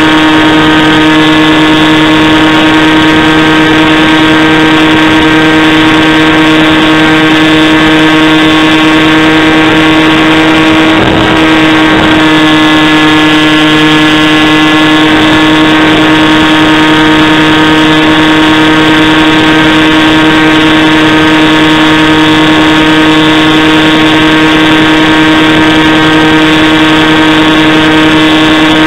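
Electric motor and propeller of a Ranger G2 RC foam plane heard close up from its onboard camera in flight: a loud, steady whine with a brief dip in pitch about eleven seconds in.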